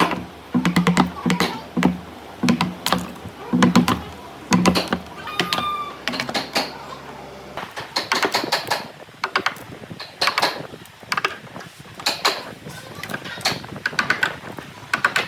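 A string of sharp taps and knocks, several a second and uneven in spacing.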